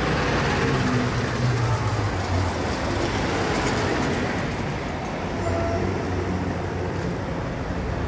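Recorded busy-street ambience: a steady background of road traffic with vehicle engines running and passing.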